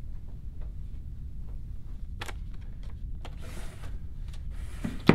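Steady low room rumble with scattered faint clicks and a couple of short rustles, then one sharp knock just before the end.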